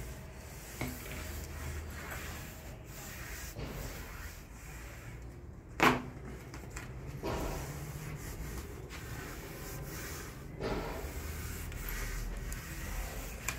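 Hands rubbing and pressing velvet cloth onto a projection-screen frame, pressed down so no air bubbles stay under the velvet, with a few light knocks of handling. A single sharp knock about six seconds in is the loudest sound.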